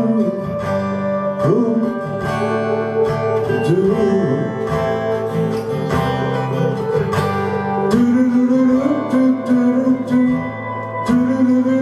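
A live song: a man singing over a strummed acoustic guitar, with an electric guitar playing along.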